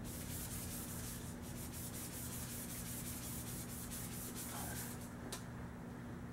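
Green abrasive pad scrubbed quickly back and forth along a steel air rifle barrel, polishing it bare and shiny to prepare it for bluing. The repeated strokes stop about five seconds in, over a steady low hum.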